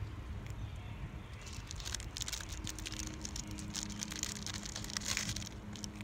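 Fox squirrel eating a treat, giving faint irregular crunching crackles from about a second and a half in until near the end, over a low steady rumble.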